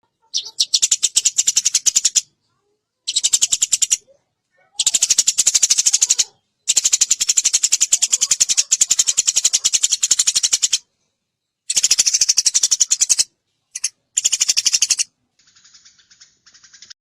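Eurasian tree sparrows chattering: bouts of very fast, high, repeated chirps, each lasting one to four seconds and cut off by sudden silences, with a fainter bout near the end.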